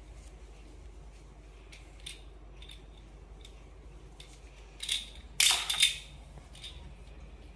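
Small plastic toy car being handled: faint clicks and ticks of plastic, then a short burst of louder plastic clatter about five and a half seconds in.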